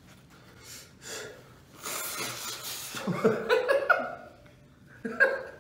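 A man blowing his nose into a paper napkin, with a couple of sniffs and then one long blow of about a second; his nose is running from very hot chili sauce. Brief voice sounds follow the blow.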